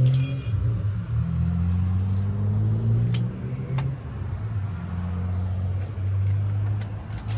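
A motor vehicle engine running, its pitch sliding slightly up and down, with a few sharp clicks about three and four seconds in.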